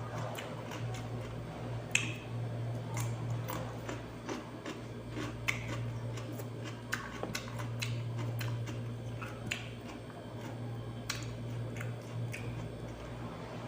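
Raw cucumber being bitten and chewed, with irregular crisp crunches and clicks over a steady low hum.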